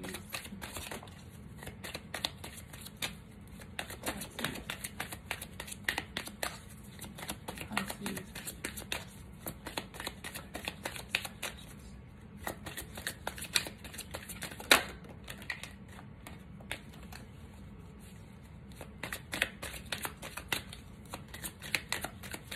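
A deck of oracle cards being shuffled by hand: a quick, uneven patter of card edges flicking and slapping together, with one sharper snap about halfway through.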